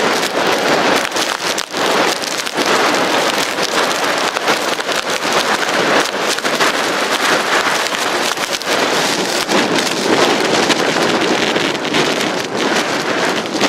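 Blizzard wind buffeting the microphone while wind-driven snow pelts it, a loud, dense, unbroken hiss with constant fine pattering.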